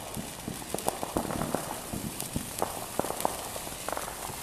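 Ground fountain firework spraying sparks: a steady hiss with scattered, irregular crackling pops.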